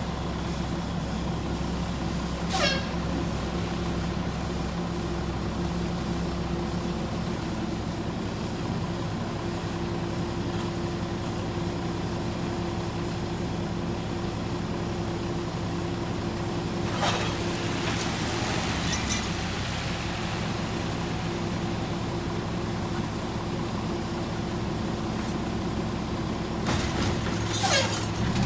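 Mack LE rear-loader garbage truck's engine idling steadily. There is a brief knock a few seconds in, a clatter with a hiss about two-thirds through, and more knocks near the end as bulk items are thrown into the rear hopper.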